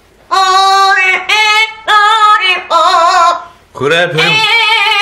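Amazon parrot singing a melody in a human-like voice: a run of about five held, slightly wavering notes with short breaks between them.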